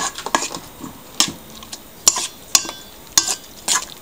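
Metal fork clinking and scraping against a stainless steel mixing bowl while stirring egg batter, in irregular clinks about every half second. One clink rings briefly, a little past halfway.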